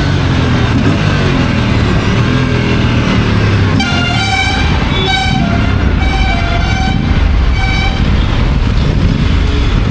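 Aprilia engine running on its stock exhaust, with a vehicle horn honking about four short times from about four seconds in to about eight seconds in.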